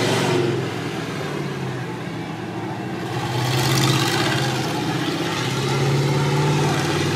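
Monster truck's engine running loud, swelling twice as it is revved up, with a rough noisy wash over a steady low drone.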